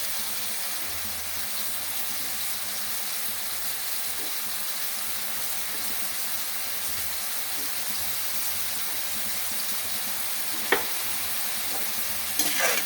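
Mushrooms shallow-frying in a covered pan, a steady sizzle. A sharp click about eleven seconds in and a brief clatter near the end.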